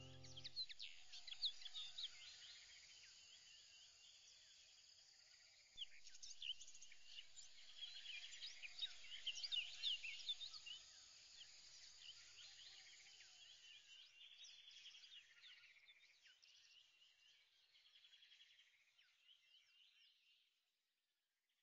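Faint chorus of many small birds chirping, busiest in the middle and thinning out until it stops just before the end.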